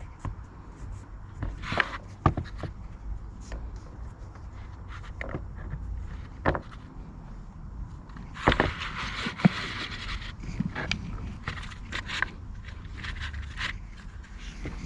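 Handling noises from work on a blower's pull-start: scattered light clicks and knocks, with a scraping rustle about eight and a half seconds in that lasts over a second.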